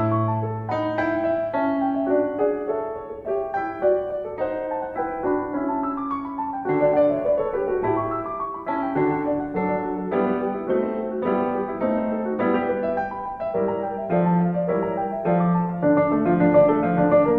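Background piano music, a steady run of single notes and chords.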